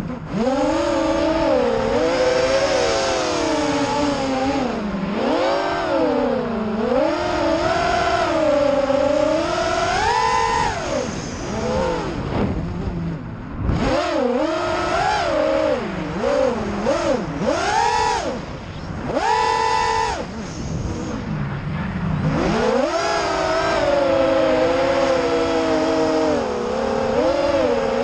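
FPV racing quadcopter's brushless motors and propellers whining in flight, the pitch constantly rising and falling with the throttle, and dropping away briefly twice when the throttle is cut.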